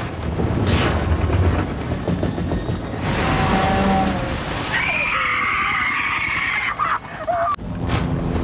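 Film sound mix of a ship explosion's aftermath: a deep rumble and rushing noise with helicopter engine noise. High wavering tones rise over it from about five seconds in and cut off sharply near the end.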